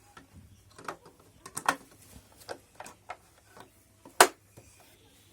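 Irregular clicks and knocks from parts of a Brother JV1400 sewing machine being handled, about a dozen spread out, with one sharp knock about four seconds in.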